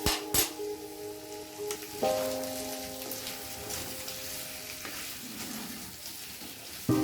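Food frying and sizzling in a pan while being stirred: a steady sizzle with scattered small ticks, and two sharp knocks just after the start, with background music underneath.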